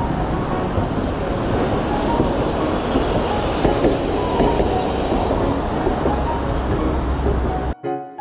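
Steady city street noise: a dense rumble with clatter and scattered clicks. It cuts off abruptly near the end, and piano music begins.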